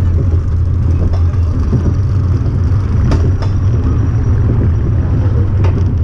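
On-ride sound of a Wacky Worm family roller coaster car running along its track: a loud, steady low rumble, with a couple of sharp clicks about three seconds in and another near the end.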